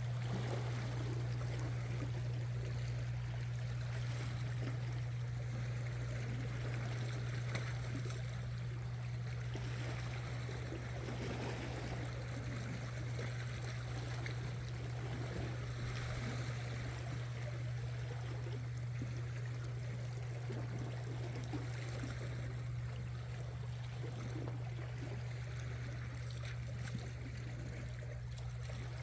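Sea water washing and trickling against shore rocks, with a steady low hum underneath.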